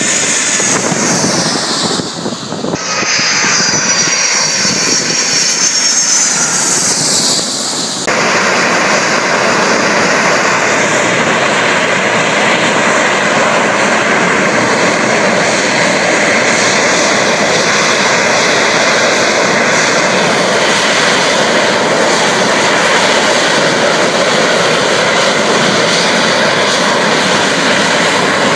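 Twin-engine jet airliner passing low overhead, its engine whine falling in pitch as it goes by. About eight seconds in this switches abruptly to a steady, loud rushing roar of jet engines from an airliner at the runway end.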